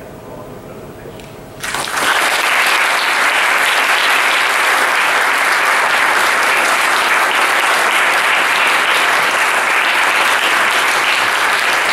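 Audience applause, breaking out suddenly about a second and a half in and holding steady.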